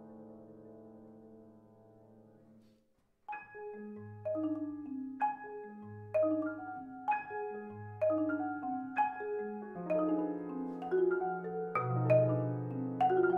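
A sustained piano chord fades away, then after a brief pause, about three seconds in, the marimba and piano come in with a driving pattern of short struck notes over longer low notes. The pattern grows denser and louder toward the end.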